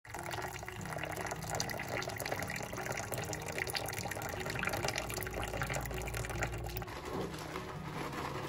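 Water poured in a steady stream into a ceramic mug over a green tea bag, splashing as the mug fills.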